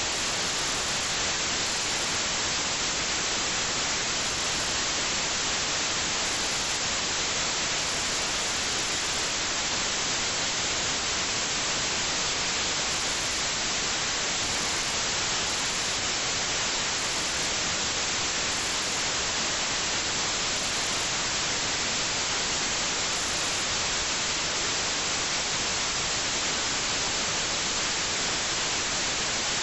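Steady, even static hiss with no change in level.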